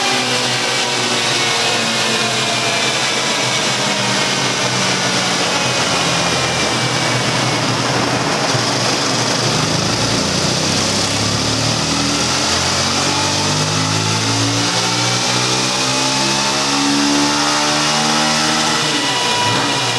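Yamaha XTZ 250 Lander's single-cylinder four-stroke engine running loud under test on a dynamometer. Its revs fall slowly through the first half, then climb steadily again toward the end.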